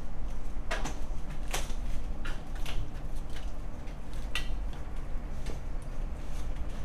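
Scattered light knocks and clicks, irregular and about a second apart, over a steady low rumble.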